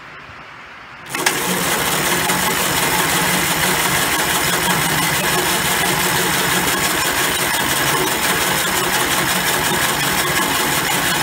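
Electric starter cranking the 1968 Gravely L8's 7.6 hp single-cylinder engine steadily, starting about a second in, without the engine ever catching: the owner is pretty sure it is getting no spark.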